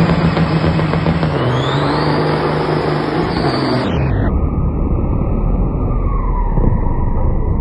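Heavy diesel semi-truck engines running at high revs, with a whistle rising about a second and a half in. About four seconds in the sound changes abruptly to a deep, low diesel rumble with a whistle sliding down in pitch.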